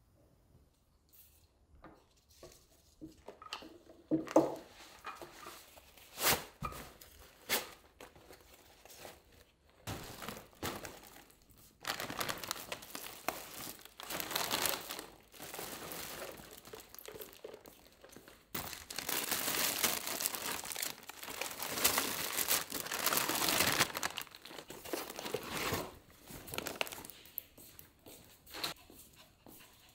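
Plastic grocery bags and packaging crinkling and rustling as groceries are lifted out of woven shopping bags, loudest in the middle of the stretch. Before the rustling starts, a few sharp knocks, the loudest about four seconds in.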